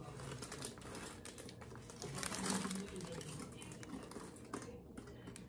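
Aluminium foil crinkling faintly as it is handled in gloved hands: a run of small, irregular crackles.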